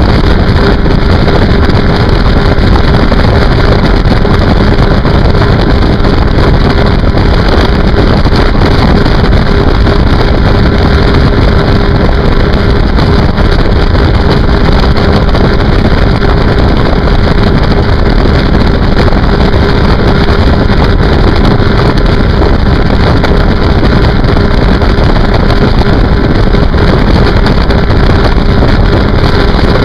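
Sea-Doo RXT personal watercraft running flat out: a loud, steady engine drone that never changes pitch, mixed with the rush of its jet wake.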